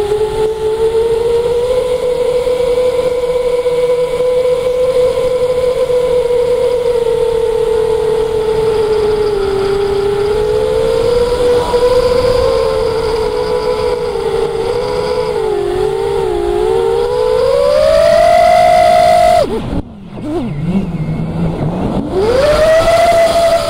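Electric motor and propeller of an RC aircraft whining in flight, the pitch wandering up and down with the throttle. About nineteen seconds in, the throttle is cut and the whine drops away sharply, then it spools back up about two seconds later.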